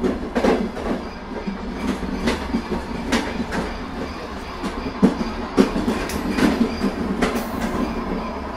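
HO-scale model train running along the track: an irregular clicking rattle of wheels over the rails over a steady low hum.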